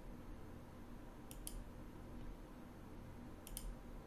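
Two computer mouse clicks about two seconds apart, each a quick double tick of the button pressing and releasing, over a faint low hum.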